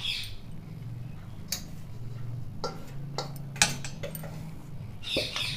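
Scattered light clicks and taps of a small measuring bowl (katori) scooping gram flour and knocking against the mixing bowl, over a low steady hum.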